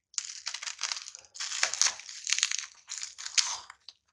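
Black plastic parcel wrapping crinkling and crackling as it is torn and pried open by hand, in about four bursts.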